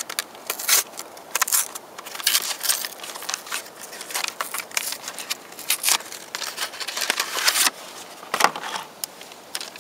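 MRE packaging handled by hand: the cardboard meal carton and packets rustling and crinkling as the entrée is taken out to go into the flameless ration heater. Irregular scrapes and crinkles come in quick clusters.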